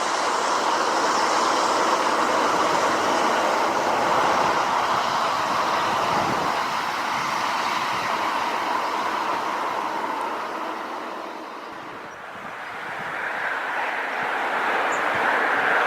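Steady rushing of fast floodwater in the Glomma river, dipping in level about twelve seconds in and then coming back with a brighter hiss.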